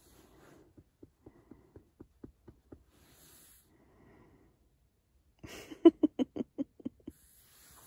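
A dog's breathing: faint short snuffles about four a second, then a breathy huff and a louder run of quick grunting snorts about two-thirds of the way through.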